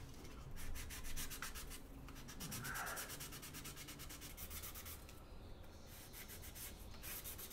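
Fine-grit sanding stick scrubbed in quick back-and-forth strokes over dried spot putty on a plastic toy pistol, with a brief pause about five seconds in.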